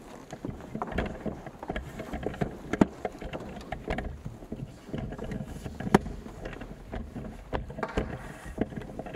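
Close handling noise at the camera microphone: scattered knocks and rustles over a low rumble, with two sharper knocks about three and six seconds in.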